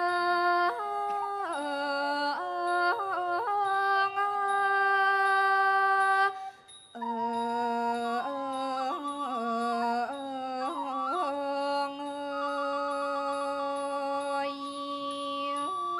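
Female voice singing a Thai classical vocal line, holding long notes linked by wavering, ornamented slides, with a short breath break about six seconds in.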